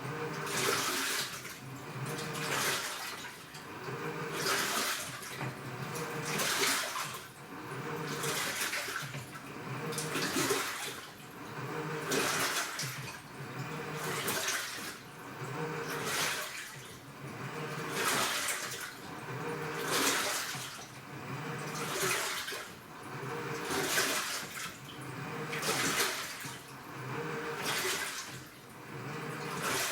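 AQUA direct-drive inverter washing machine agitating its load: water sloshes in surges about every two seconds as the drum action reverses, with the inverter motor humming between surges.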